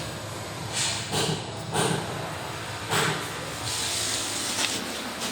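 Plastering tool rubbing and scraping across fresh plaster on a wall in irregular strokes, with one longer sweep of about a second near the end, over a steady low hum.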